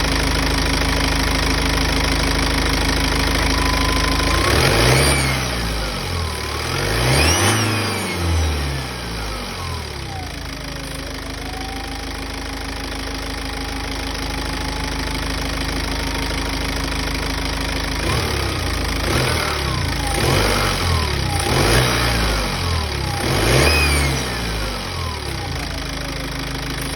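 BMW 125d four-cylinder diesel engine idling and blipped twice, then four more times in quick succession near the end, with a thin whistling whine that climbs and falls with the revs and hangs on at idle between blips. This whistle/whine appeared after a decat and an uprated intercooler were fitted.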